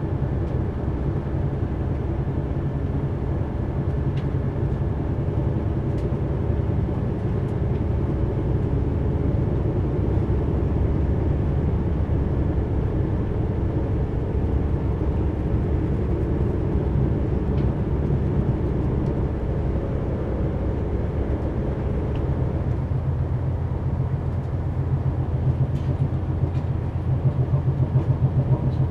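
Passenger train running along the line, heard from inside the carriage: a steady low rumble of wheels on rail, with a rapid rhythmic pulsing near the end.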